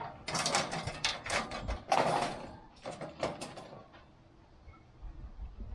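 Wire rack clattering and scraping against the metal fish smoker box as it is lowered and set in place: a quick run of metallic knocks and scrapes, loudest about two seconds in, dying away after three and a half seconds.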